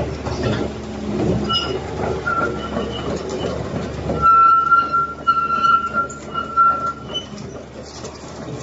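Caterpillar 330 excavator running with a low, clattering rumble; about four seconds in the rumble drops away and a high metallic squeal comes and goes in several short stretches.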